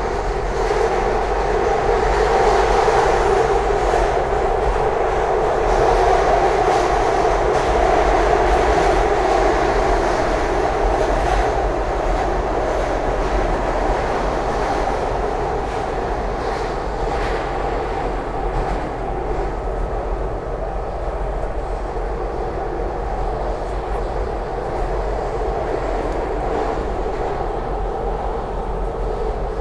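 SEPTA Market-Frankford Line M-4 subway car running between stations, heard from inside: a steady rumble of wheels on rail, with now and then a faint clack over the rail joints. It is loudest in the first few seconds and eases a little in the second half.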